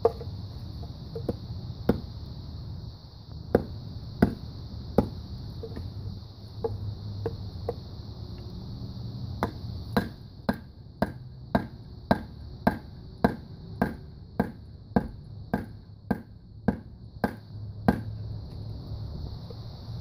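Wooden baton knocking a blade through a piece of fatwood to split it: a few scattered knocks at first, then from about halfway a steady run of sharp wooden knocks, about two a second, that stops near the end.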